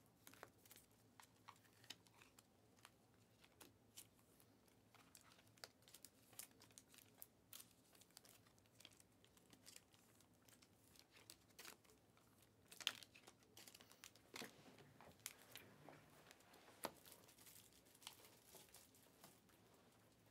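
Faint, scattered rustles and light clicks of trading cards being handled over a table, with two sharper taps in the second half.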